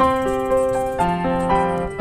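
Background piano music: a slow melody over chords, each note struck and left to ring as it fades.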